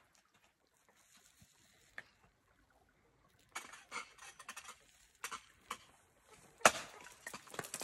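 Ice tools and crampons striking and scraping ice: scattered sharp metallic clicks starting about halfway through, with one loud strike near the end.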